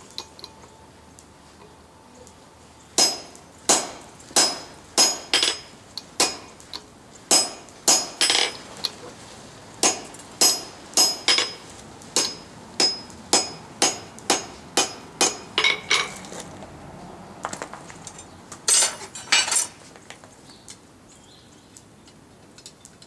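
Hand hammer striking a red-hot square bar of coil-spring steel on an anvil while drawing out an awl. The blows ring sharply and come about one to two a second from about three seconds in until about sixteen seconds, then a quick run of about four blows a few seconds later.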